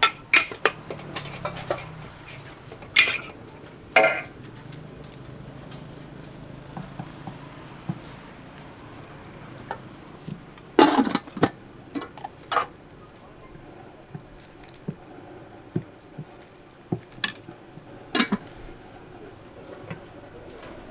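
Kitchen clatter at a food stall: metal utensils knocking and clinking against pots, pans and dishes in scattered, irregular strikes, a handful of them louder clanks, over a low steady background noise.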